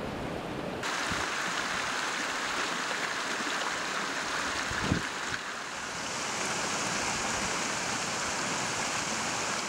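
Mountain stream water rushing and spilling off the ends of a row of metal gutter channels into the stream. The sound gets suddenly louder about a second in, and there is a short thump about five seconds in.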